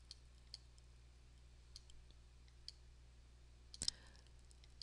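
Computer-mouse button clicks over near silence: a few faint, widely spaced clicks, and a louder one about four seconds in.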